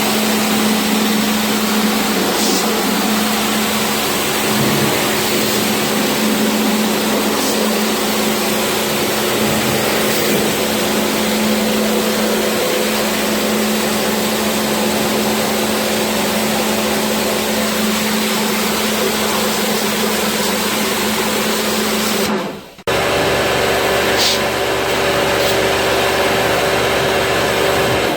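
Motor-driven high-pressure washer running steadily with a hissing water jet, blasting packed dust out of an air conditioner's evaporator coil from front to back. The sound drops out briefly about 22 seconds in and resumes with a higher motor hum.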